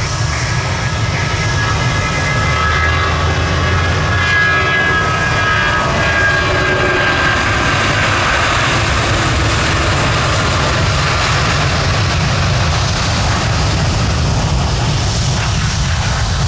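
Jet airliner engines passing close by: a steady loud rumble with a whine that falls in pitch partway through as the aircraft goes past.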